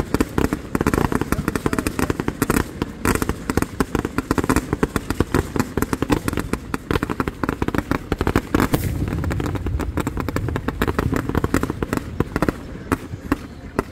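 Fireworks going off in a dense barrage of rapid, overlapping bangs and crackles as volleys of gold comets fire, thinning to a few scattered cracks near the end.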